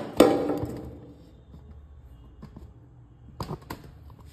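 A steel bowl set down in a stainless steel sink: two sharp knocks and a short metallic clatter at the start, then quiet except for two light clicks near the end.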